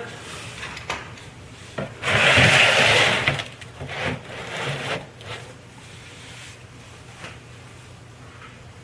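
A person sliding along on the ground beneath a car, with one loud scraping slide lasting over a second, then a few lighter scuffs and knocks.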